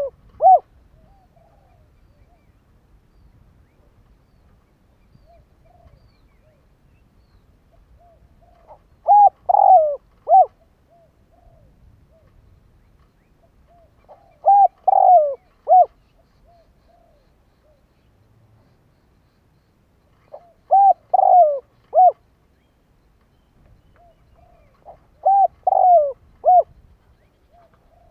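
Spotted dove cooing: a decoy bird's song, short phrases of three or four coos repeated about every five to six seconds, with faint soft notes between phrases.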